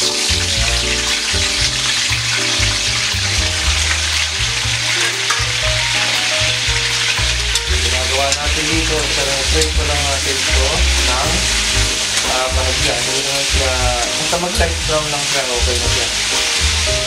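Potato and carrot chunks frying in hot oil in a wok with a loud steady sizzle that starts as the potatoes go in, turned over with metal tongs.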